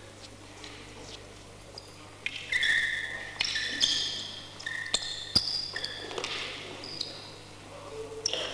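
Athletic shoes squeaking repeatedly on a gym floor as two fighters step and pivot in a canne de combat bout, with a few sharp wooden clacks of the canes meeting. The squeaks start about two seconds in.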